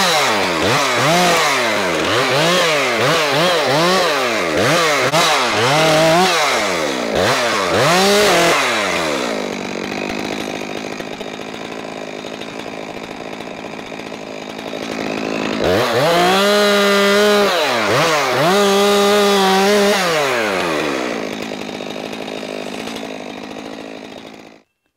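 Chainsaw limbing a felled Douglas fir: the engine revs up and down in quick bursts, about one a second, as branches are cut, then drops to idle. Later it runs at full throttle twice for about two seconds each, falls back to idle, and cuts off suddenly near the end.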